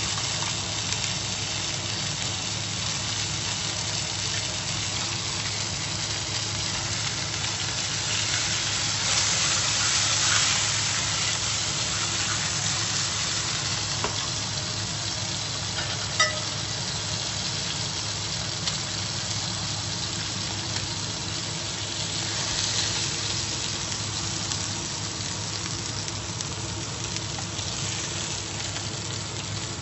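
Beef steak searing in a hot nonstick frying pan: a steady sizzle that swells louder about a third of the way in and again past the middle, with a single sharp click about halfway and a steady low hum underneath.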